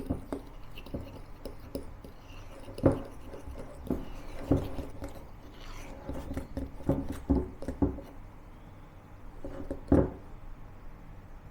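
A kitchen utensil stirring a thick butter, sugar and flour coffee-cookie topping in a mixing bowl by hand, with rubbing and scraping and irregular knocks against the bowl as the flour is worked in until smooth.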